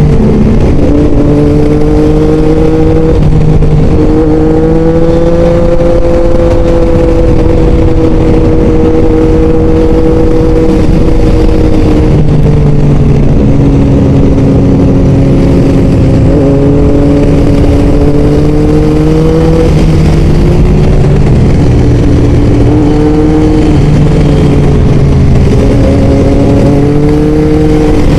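Motorcycle engine pulling at riding speed, its pitch drifting gently up and down with the throttle and dipping twice, under a heavy rush of wind on the helmet microphone.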